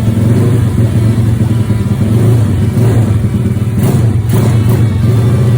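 Modified Honda Wave 125 single-cylinder four-stroke engine, bored to 68 mm with a 4 mm carburettor jet, running steadily, with a brief blip of revs about three to four seconds in.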